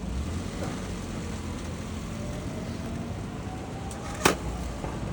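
Low, steady city street rumble with a faint whine that slowly rises in pitch through the middle, and a single sharp click a little over four seconds in.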